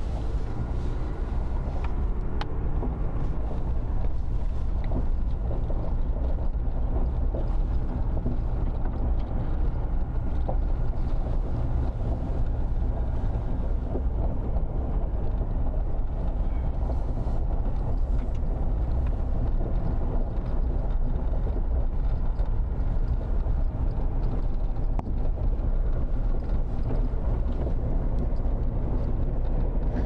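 Vehicle driving, heard from inside the cabin: a steady low engine and road rumble, with faint crackles of tyres rolling over a gravel drive.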